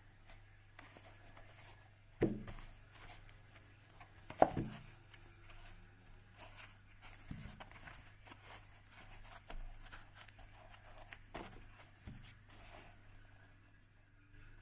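Handling noises from unpacking: two sharp knocks about two and four and a half seconds in, lighter knocks later, and scattered rustling and scraping of packaging, over a faint steady low hum.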